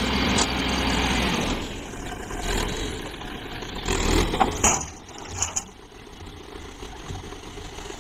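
Small dump truck's engine running while the tipper bed rises to dump a load of earth. The engine is louder for the first second and a half, then runs more quietly, with a few short knocks about four to five seconds in.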